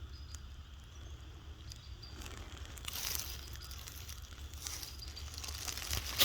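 Rustling and crunching of leaves, twigs and dirt being disturbed, with scattered small clicks, growing busier from about two seconds in.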